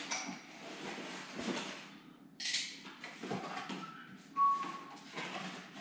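Cardboard Funko Pop packaging being handled: irregular rustling and scraping, with a sharp hiss about two and a half seconds in and a short, steady squeak about four and a half seconds in.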